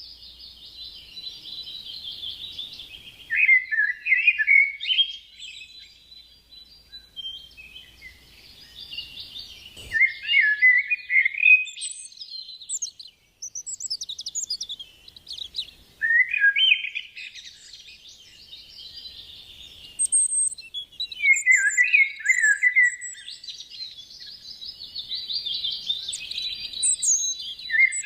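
Songbirds singing. One bird repeats a phrase of about four seconds several times, a rapid high trill that drops into a lower flourish at its end, and shorter chirps from other birds come between the phrases.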